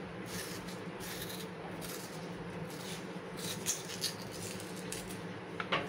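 A metal spoon scraping out the inside of a halved raw potato: soft, irregular scrapes, with a small click about two-thirds of the way through and another near the end.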